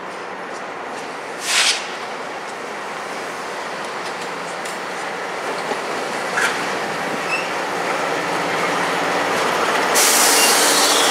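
A light-engine consist of Canadian Pacific diesel locomotives, a GE AC4400CW leading, rolls slowly past at close range, its engines and wheels on the rail growing steadily louder. There is a short sharp burst of noise about a second and a half in. Near the end the wheel-and-rail noise rises sharply as the lead units come alongside.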